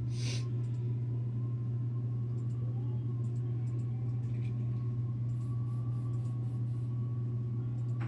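Steady low hum, with a faint steady higher tone above it and a few light clicks.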